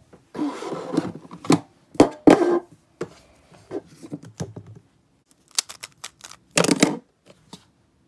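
Plastic Rubik's cube being turned fast in a speed solve: irregular bursts of clicking, rattling turns, with a louder clatter near the end.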